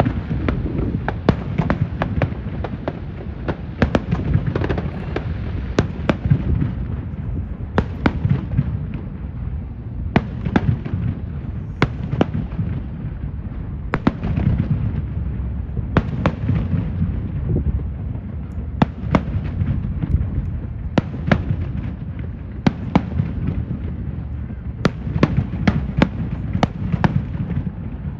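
Fireworks display going off: a constant low rumble of bursts with many sharp cracks and pops coming irregularly, several a second at times.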